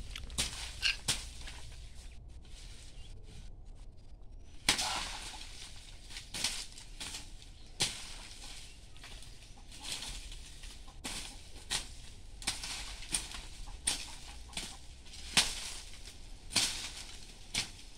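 A hand farming tool striking and scraping the soil and dry vegetation while clearing ground, with rustling of dry leaves and stalks. The strokes come irregularly, about one a second, starting after a quieter few seconds.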